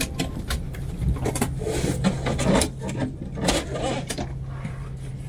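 Inside an Airbus A330-900neo cabin parked at the gate: a steady low hum, with scattered sharp clicks and knocks.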